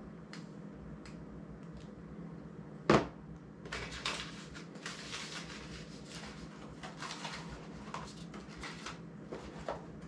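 A sharp knock on the table about three seconds in, then a run of quick, irregular rustles and crinkles as a small part's paper packaging is unwrapped and handled by hand.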